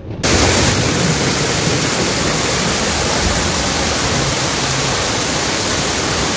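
Water rushing from a dam's row of open spillway gates: a steady, even rush of noise that starts abruptly just after the start.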